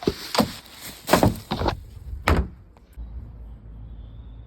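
A quick run of knocks and thuds over a rustling, scraping noise, about six in under three seconds, then a steady low rumble.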